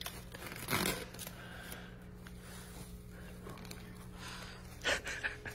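Quiet room with a steady low hum and two brief soft noises, about a second in and near the end.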